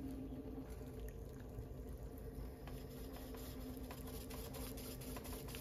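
Electric pottery wheel running with a steady hum while wet clay is centered by hand on the spinning wheel head, with a soft watery sound from the clay.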